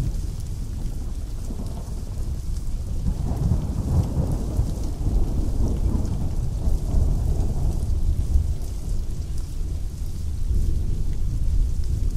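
Steady pouring rain with a long roll of thunder that swells about a second and a half in and fades out by about eight seconds.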